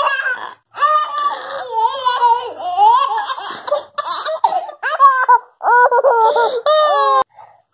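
Toddler laughing in a run of loud, high-pitched bursts with sliding pitch, cutting off shortly before the end.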